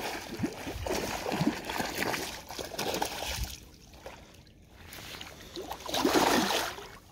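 A hooked pike thrashing at the water's surface, splashing in irregular bursts, with the biggest splash about six seconds in.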